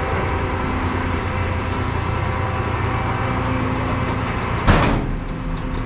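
A heavy vehicle's engine idling steadily, with one short, loud burst of noise about three-quarters of the way through.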